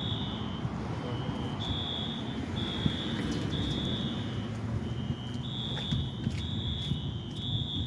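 Station fire alarm sounding: repeated high-pitched electronic tones at two slightly different pitches, each lasting under a second, over a steady low rumble. The alarm is still in alarm and has not yet been silenced or reset.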